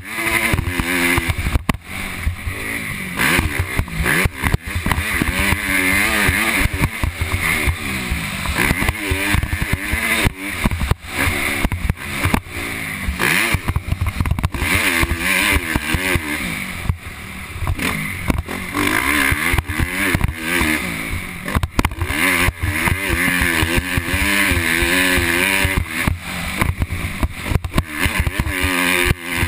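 Motocross dirt bike engine, recorded from the rider's helmet camera, revving up and dropping back again and again as the rider accelerates and shifts around the track.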